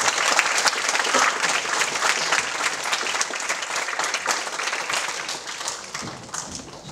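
Audience applauding, loud at first and tapering off near the end.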